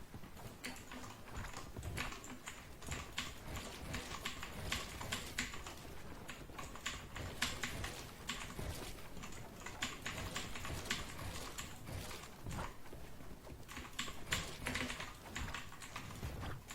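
Typing on a Dierya T68SE 60% mechanical keyboard with red linear switches: a rapid, irregular stream of key clacks that starts about half a second in.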